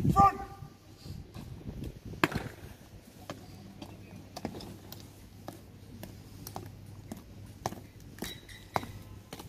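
Sharp clicks or knocks, roughly one a second, with fainter taps between them, over a faint low steady hum.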